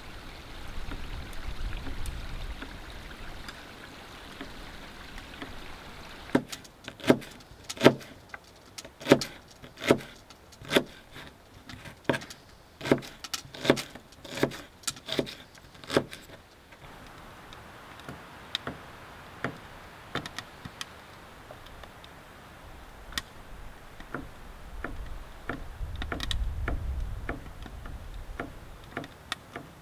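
Chef's knife chopping shallots on a cutting board, about two sharp knocks a second, starting about six seconds in and stopping about ten seconds later. Lighter scattered taps and a steady hiss come before and after it.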